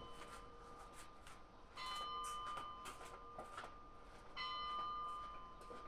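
A bell tolling, struck twice about two and a half seconds apart, each stroke ringing on and fading, with faint light clicks between.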